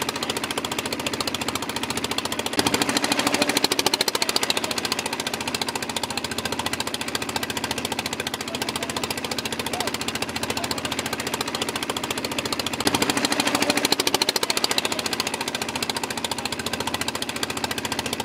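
A steady, rapid mechanical rattle like a running engine. It grows louder twice, each time for about two seconds, near three seconds in and again near thirteen seconds in.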